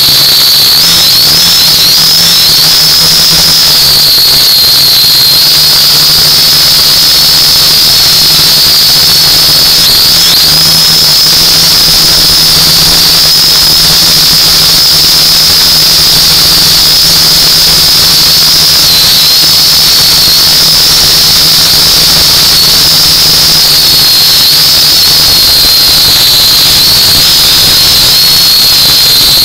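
UDI U818A-1 quadcopter's motors and propellers, heard from the drone's own onboard microphone, giving a loud, high, steady whine. Its pitch wavers and dips briefly a few times.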